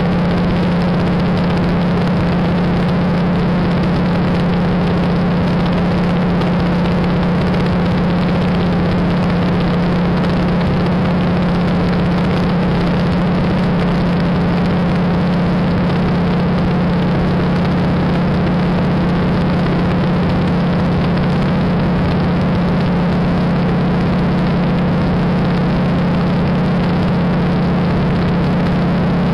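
De Havilland Beaver floatplane's nine-cylinder Pratt & Whitney R-985 radial engine and propeller droning steadily in cruise flight, heard inside the cabin: a strong, steady low hum under a constant rush of wind and engine noise.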